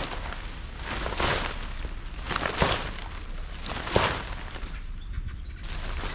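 Rustling and handling noises of camping gear being packed up, in repeated swells, with two sharp knocks about two and a half and four seconds in, over a low steady rumble.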